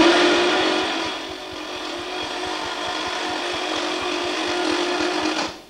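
Wobble-plate (swashplate) variable-displacement engine prototype running, a steady whirring tone over rapid, even ticking. It is loudest at the start, dips slightly, holds steady and cuts off near the end.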